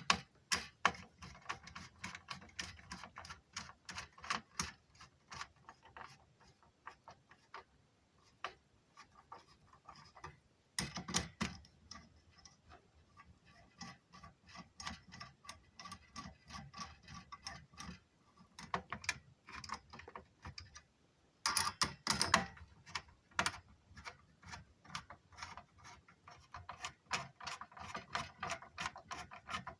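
A hand screwdriver turning small screws during a PC build, giving a long run of small, irregular clicks and ticks. Louder clusters of clicking come about eleven seconds in and again a little past twenty seconds.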